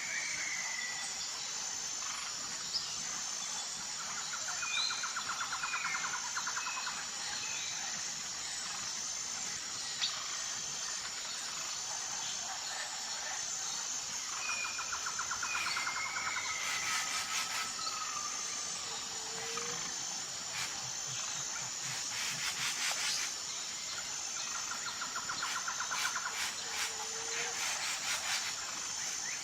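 Jungle ambience: a steady, high, pulsing insect chorus with scattered bird calls and whistles over it. Rattling trills return every ten seconds or so, and a couple of buzzy insect bursts come about two-thirds of the way through.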